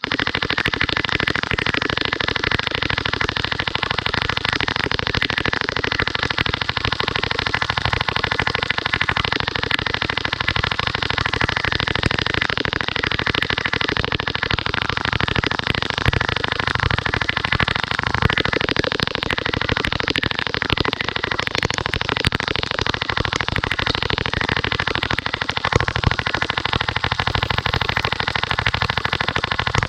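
Sustained full-auto fire from high-pressure-air BB machine guns: a dense stream of very rapid shots blending into a steady din, with BBs striking and shattering the targets.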